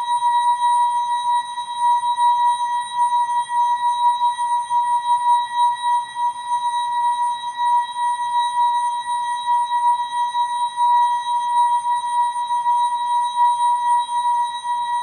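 ASKfm notification sound slowed and time-stretched into a long, unbroken steady tone near 1 kHz with fainter higher overtones, wavering slightly in loudness.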